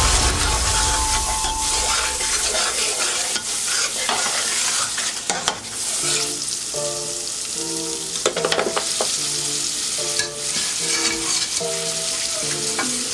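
Green masala paste sizzling as it fries in a large aluminium pot, stirred with a metal ladle.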